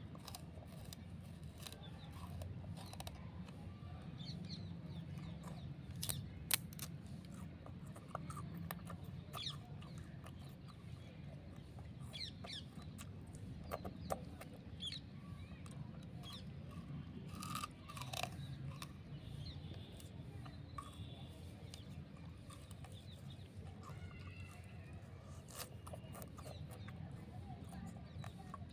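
Raw sugarcane being bitten and chewed: scattered sharp cracks and crunches at irregular intervals over a steady low hum.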